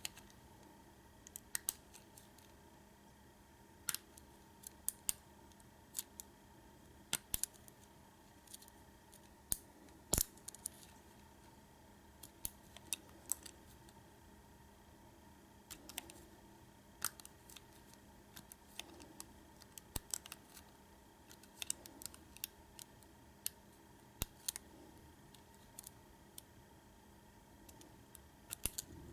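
Small, sharp metallic clicks and ticks at irregular intervals: a lock pick and tension wrench working the pin stacks of a Schlage deadbolt cylinder during single-pin picking.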